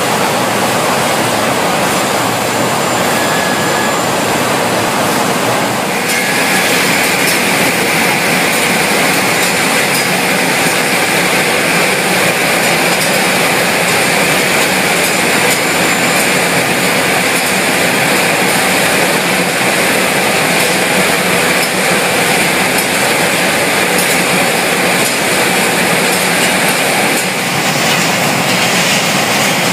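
Steady, loud machinery noise of a poultry processing line, with the overhead shackle conveyor and plant equipment running. The noise changes in character about six seconds in and again near the end.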